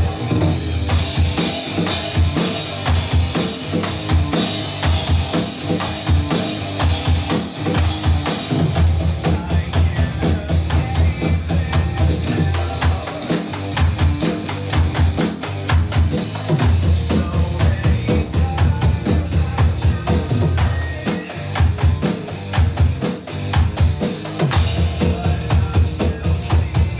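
Drum kit playing a hard rock groove on an electronic kit: snare and cymbal hits with bass drum strokes, over a rock backing track. About a third of the way in, the bass drum turns to fast, continuous strokes.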